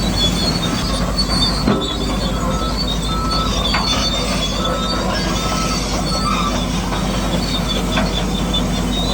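Radio-controlled model bulldozer working: the steady whine of its electric motors and gearboxes, with high squealing and clicking from the metal tracks and drive.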